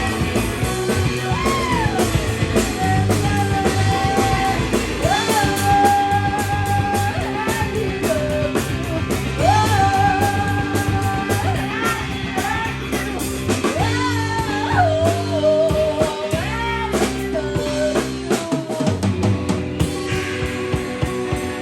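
Live rock band playing with a singer: drum kit, guitar and bass under a voice that holds long sung notes.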